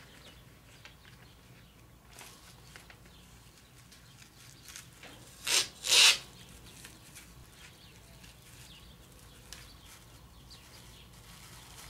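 Masking tape and plastic masking film being pulled and handled on a 3M hand-masker dispenser. About halfway through there are two short rasping tears about half a second apart, and faint rustling the rest of the time.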